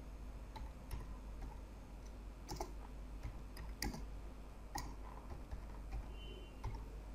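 Faint typing on a computer keyboard: irregular key clicks, a few sharper strokes around two and a half, four and five seconds in.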